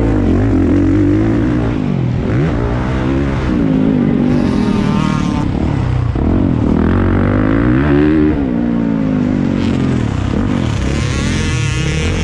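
Motocross bike engine revving hard, its pitch rising and falling again and again as the throttle opens and closes.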